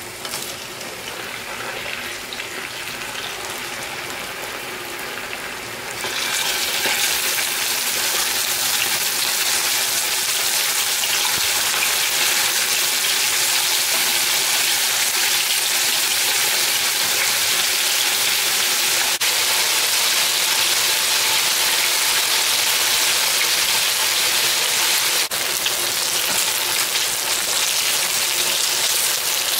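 Pork chunks bubbling in their own juices in a frying pan, then about six seconds in a loud, steady sizzle starts as the meat goes into hot oil and fries.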